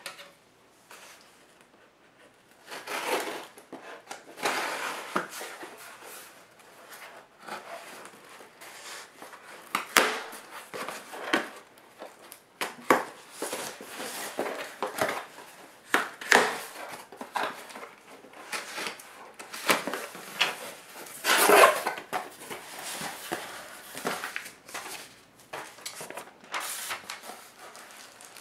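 Hands opening a retail camera package: irregular clicking, scraping and rustling of packaging, with sharp knocks, and a louder scraping rustle about three quarters of the way through.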